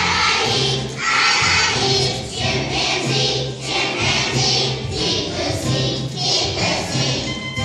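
Children's choir of second graders singing a song together with instrumental accompaniment that has a steady bass line.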